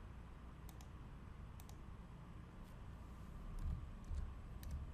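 Faint clicking at a computer: a handful of sharp clicks, mostly in quick pairs, with a few dull low bumps about three and a half to four seconds in.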